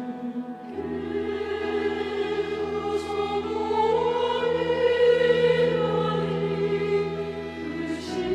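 Church choir singing a sacred anthem with instrumental accompaniment. A low held note comes in just under a second in, and the sound swells to its loudest about halfway through.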